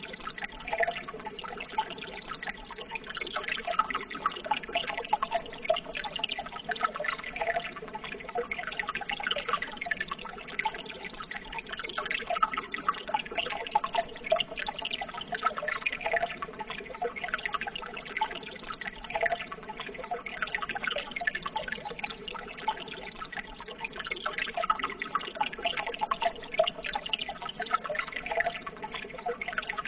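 Running water babbling and trickling steadily, with many small bubbling and dripping sounds, like a small stream.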